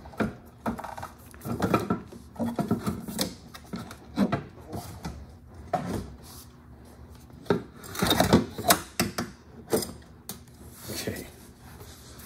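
Stock exhaust muffler of a Polaris Boost snowmobile being lifted off its chassis peg and worked out of the sled: irregular scrapes, rubs and knocks of the muffler against the surrounding parts.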